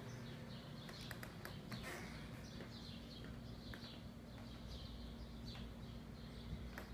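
Small birds chirping, a run of short falling chirps repeated every half second or so, over a steady low hum. A few sharp clicks come about a second in.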